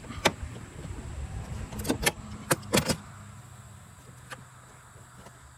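Metal hand tools clicking and clinking while the bolt of an engine torque mount is being worked loose, about six sharp clicks in the first three seconds, then quieter.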